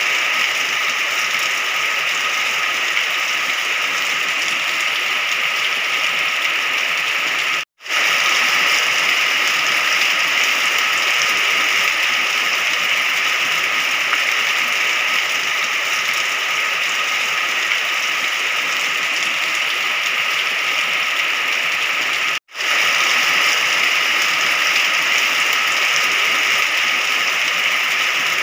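Steady, heavy rain: a continuous even hiss of falling water. It cuts out completely for a split second twice, about a quarter of the way in and again about three-quarters of the way through.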